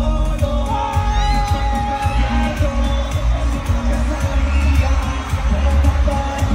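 Loud live concert music from the stage: a heavy bass beat with a singer's voice over it and crowd noise, heard as filmed from the arena.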